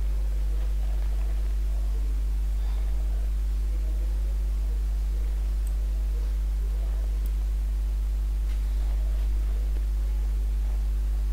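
Steady low electrical hum with a few faint, constant higher tones above it, unchanging throughout.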